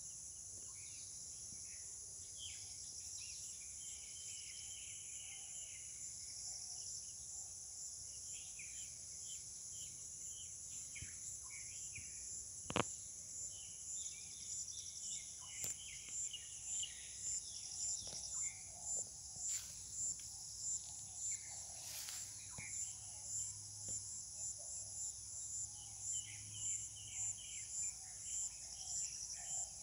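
A steady high-pitched insect chorus with birds chirping over it. From a little past halfway a rhythmic pulsing insect call joins in, about three beats every two seconds.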